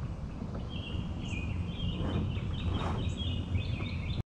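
Birds chirping and singing in short repeated phrases over a steady low background rumble, with a couple of faint knocks around the middle.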